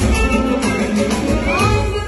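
Live Azerbaijani pop music: an instrumental passage played on a synthesizer keyboard, with a pitched line gliding upward in the second half.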